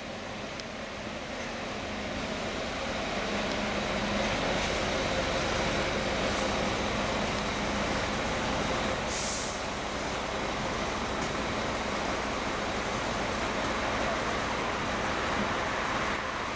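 VDL Bova diesel coach pulling up and idling at the kerb, its engine running steadily and growing louder as it draws near. About nine seconds in comes a short hiss of air from its pneumatics.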